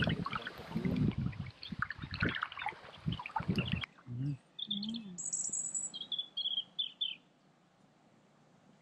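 Kayak paddle strokes with water splashing and dripping off the blade, which stop about four seconds in. Small birds then chirp, short high calls for about three seconds, before it falls quiet.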